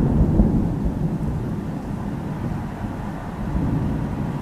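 Thunder rumbling low and rolling on, loudest at first and slowly easing off. It is the thunder from a lightning flash about 18 seconds earlier, so the strike was some 6 km away.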